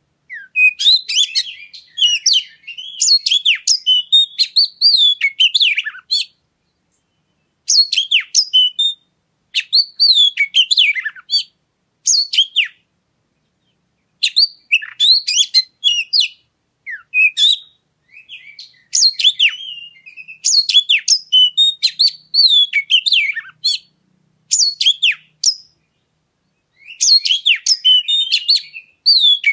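Oriental magpie-robin (kacer) singing loudly in phrases of rapid high chirps, whistles and trills, each one to several seconds long with short pauses between. It is a lure song used to set caged magpie-robins singing.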